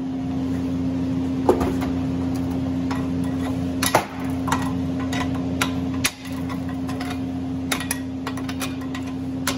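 Steady hum of a shop fan running, with scattered sharp metallic clinks and taps as a hammer and a long steel bar are picked up and handled.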